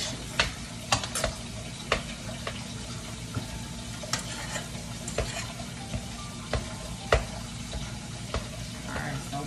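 Green beans frying with bacon, onions and butter, sizzling steadily in a frying pan while a utensil stirs them, with scattered clicks and scrapes of the utensil against the pan.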